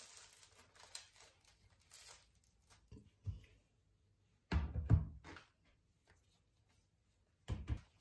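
Crusty baguette crackling faintly as it is torn apart by hand, then a few dull knocks on a wooden cutting board as a glass jar and food are set down, the loudest about halfway through.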